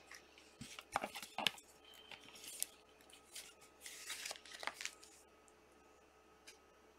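Faint scraping, rustling and small clicks of a trading card being handled and slid into a clear plastic card holder, stopping about five seconds in.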